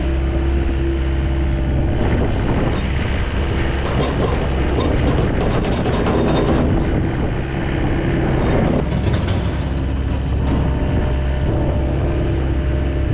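Diesel plow truck engine running steadily, with a louder rough noise building over the first few seconds and dropping away about two-thirds of the way through.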